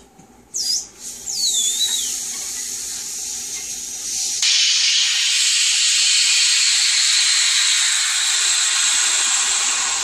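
Air rushing back into a vacuum-pumped pressure canner through the valve on its lid, releasing the vacuum after the mason jars inside have sealed. Two short falling whistles come first, then from about four seconds in a loud, steady hiss that slowly fades near the end.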